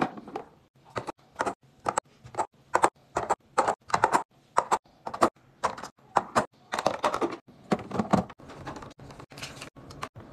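Eggs set one after another into a clear plastic egg tray, each landing with a sharp click on the plastic, about two clicks a second, some in quick pairs.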